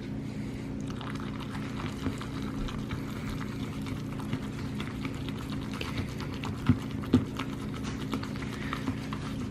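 Spoon stirring macaroni and cheese sauce in a bowl: soft, squishy scraping with small irregular clicks, and two sharper clinks against the bowl about seven seconds in, over a steady low hum.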